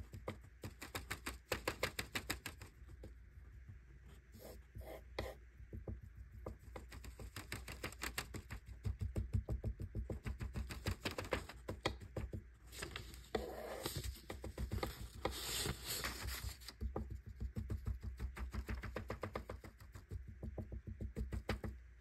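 A metal spatula chopping and scraping through crumbled pressed eyeshadow on paper: a rapid run of light ticks and scratches as the powder is crushed fine for repressing.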